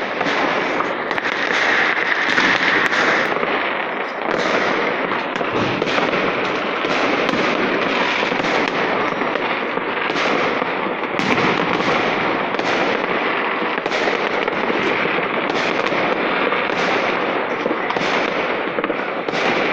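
Many fireworks and firecrackers going off at once across a city: a dense, continuous crackle with many overlapping bangs.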